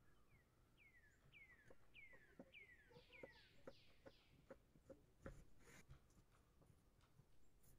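Faint knife work on a wooden cutting board as a zucchini is sliced lengthwise: scattered light clicks and taps, one sharper knock about five seconds in. In the first half, a run of about eight short chirps, each falling in pitch, comes roughly twice a second.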